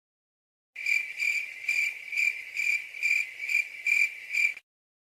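Crickets chirping, the stock 'crickets' sound effect used to mark an awkward silence: about nine evenly spaced high chirps, roughly two a second, starting just under a second in and cutting off abruptly near the end.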